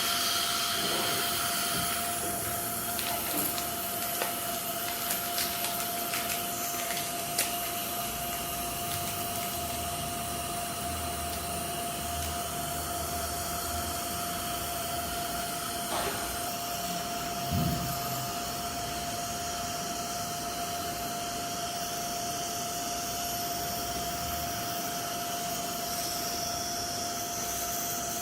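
Dental treatment equipment running steadily: an even hiss with a constant hum, with a few small clicks in the first several seconds and two short knocks later on.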